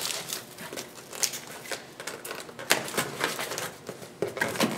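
Cardboard box flaps being folded shut and pressed down onto a box packed full of polystyrene packing peanuts: a run of irregular rustles, scrapes and clicks from the cardboard and the compressed peanuts.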